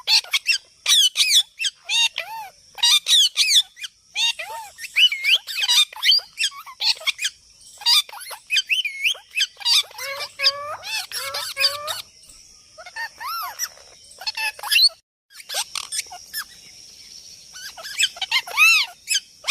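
A parrot calling over and over in quick squawks and chirps that sweep up and down in pitch, with brief pauses between runs. A faint steady hiss runs under the calls in the second half.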